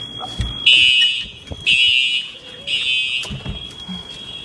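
Simplex fire alarm horns sounding the temporal-three evacuation signal: three short, loud horn blasts about a second apart, then a pause. A couple of low thuds are heard underneath.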